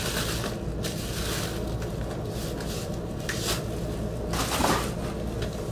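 Rustling and scraping of a vinyl record's packaging handled by hand, with a louder rustle about four and a half seconds in, over a steady low hum.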